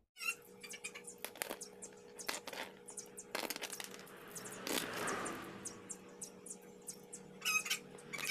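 Motorcycle roller chain being handled by hand: its metal links click and rattle in scattered light clicks.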